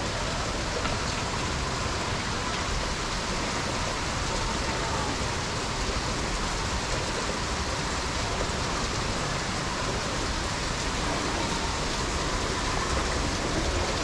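Waterfall's falling water heard on the approach: a steady, even rush that holds constant throughout.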